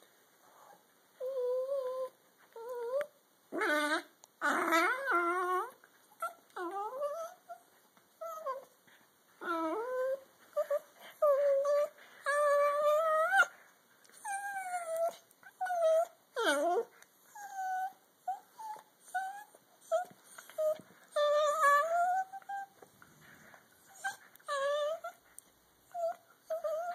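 A dachshund and a toy fox terrier squealing and whining as they play-wrestle: many short high-pitched cries that rise and fall, starting about a second in.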